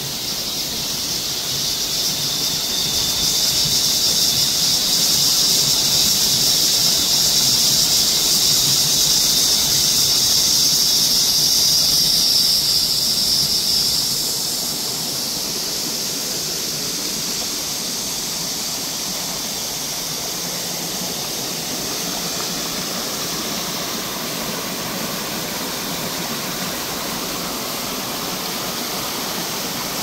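Cicadas in the surrounding trees keeping up a steady, high-pitched drone that swells over the first few seconds and drops to a lower level about halfway through. Beneath it runs the low, even rush of a shallow mountain stream.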